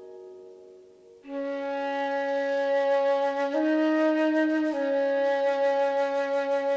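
Background music: a plucked note dies away, then about a second in a flute-like melody enters, playing long held notes that change pitch twice.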